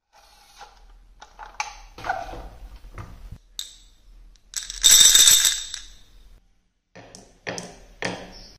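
Glass marbles clattering and clinking together inside a small drinking glass, the loudest burst about halfway with a high glassy ring. Near the end, a few sharp clicks as marbles drop into the wooden cups of a marble-run track. Earlier come lighter clicks and knocks of a plastic toy truck being handled.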